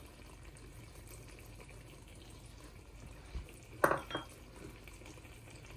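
Chicken-liver masala simmering in a steel kadhai on a gas stove, a faint steady simmer, with a short sharp knock about four seconds in.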